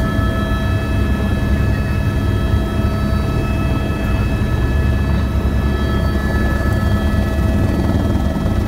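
Helicopter running at take-off power, heard from inside the cabin: a steady heavy rotor and engine rumble with several steady high turbine whine tones over it.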